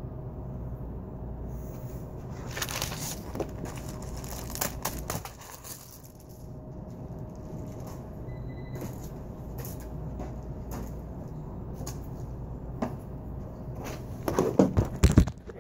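Steady low hum of a large store's background with scattered small clicks and knocks. Near the end, loud rubbing and knocks as a phone lying on a counter is picked up and handled.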